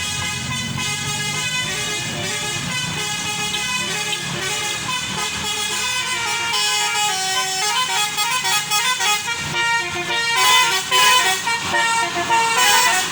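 Tour bus's 'telolet basuri' multi-tone musical horn playing a tune in changing notes, over the steady rumble of the bus engine, growing louder near the end.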